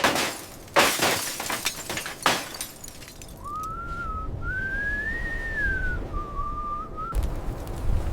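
Three loud crashes in quick succession, then a single wavering whistle for about four seconds that rises and falls in pitch.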